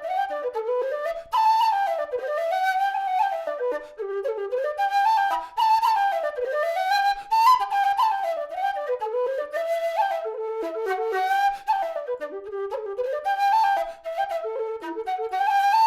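Nightingale aluminium low whistle played solo: a quick folk melody of short notes rising and falling, with brief pauses between phrases.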